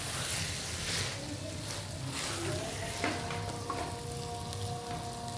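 Chicken pieces, onion and spices sizzling in hot oil in a clay pot while a spoon stirs them, scraping against the pot now and then. A faint steady tone comes in about three seconds in.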